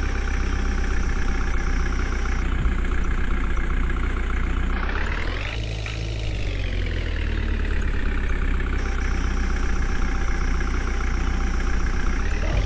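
JCB 3DX backhoe loader's diesel engine running, revving up sharply about five seconds in and easing slowly back down.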